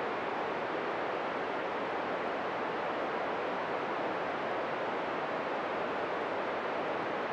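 Steady hiss of an FM receiver, squelch open, on the ISS 145.800 MHz downlink while no voice is being sent.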